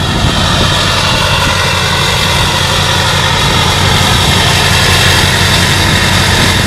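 2004 LLY Duramax 6.6 L V8 turbodiesel running steadily through a new 4-inch MBRP turbo-downpipe-back exhaust with no catalytic converter. The deep exhaust rumble carries a steady high turbo whistle out of the tailpipe, and it gets slightly louder about four seconds in.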